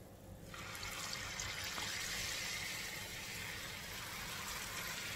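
Corn fritter batter dropped by the spoonful into hot cooking oil in a frying pan, the oil starting to sizzle about half a second in and then frying with a steady hiss.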